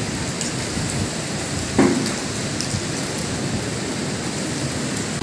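Windstorm with rain: a steady rushing noise of strong wind through trees and falling rain, with one brief louder sound just under two seconds in.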